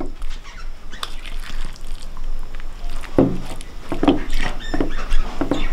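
Thick, oily mango pickle being scooped with a metal spoon and dropped into a bowl: soft wet squelches and plops, quiet at first, then a run of louder squelches from about three seconds in.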